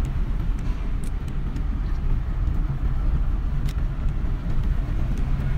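Steady low rumble of a car's engine and tyres heard from inside the cabin while driving, with a couple of faint ticks.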